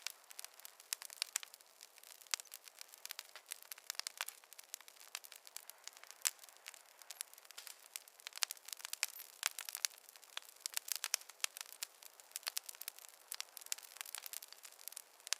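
Wood fire crackling and popping, with many small irregular snaps over a faint hiss.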